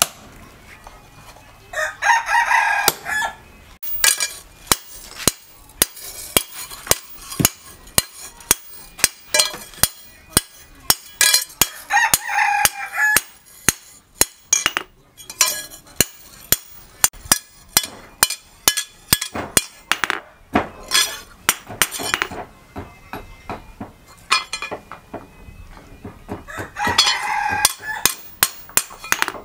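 Irregular hand-hammer blows ringing on the steel billhook blade as it is shaped on an anvil. A rooster crows three times: about two seconds in, around twelve seconds in, and near the end.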